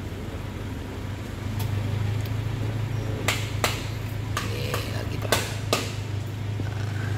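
Forklift engine running with a steady low hum that grows a little louder about a second and a half in. A handful of sharp knocks and clicks come in the middle.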